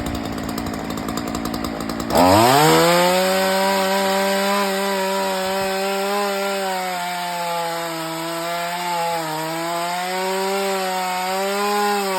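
Chainsaw running slowly, then throttled up sharply about two seconds in and held at high revs with small dips in pitch as it cuts through wood.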